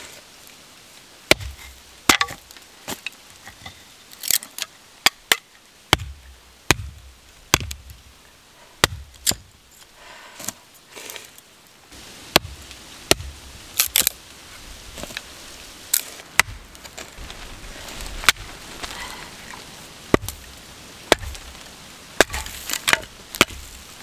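A small axe splitting short lengths of firewood into kindling: a long, irregular series of sharp knocks as the blade strikes the wood, about one a second, some in quick pairs.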